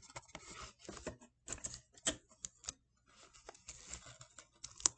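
Cereal-box cardboard being folded and handled: a scatter of small sharp clicks and crackles as the flaps are creased, then rubbing and scraping of cardboard against paper in the last two seconds.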